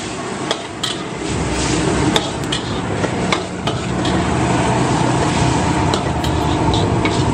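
Metal spatula clanking and scraping against a steel wok as noodles and cabbage are stir-fried. Underneath is the steady roar of the gas wok burner, which grows louder about a second in and again around four seconds in.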